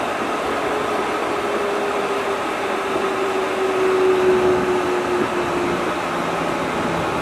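Steady running noise inside the cabin of a Yurikamome rubber-tyred automated guideway train, with a motor whine that slowly falls in pitch.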